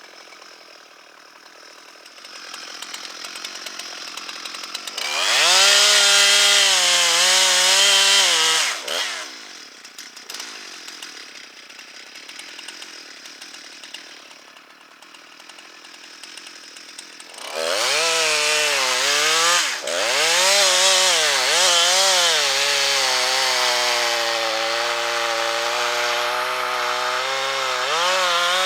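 Chainsaw revving and cutting wood in two long runs, one starting about five seconds in and dropping off near nine seconds, the other starting about halfway through and running on. The engine pitch dips and recovers as the chain bites, then holds steady under load.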